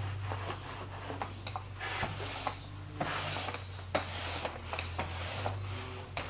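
Small paint roller spreading wet contact cement across a plywood countertop, rubbing swishes about once a second with small clicks between strokes.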